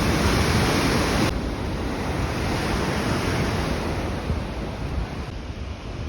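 Rushing water from a waterfall, a steady roar of white noise with wind buffeting the microphone. It is louder for about the first second, then drops a step.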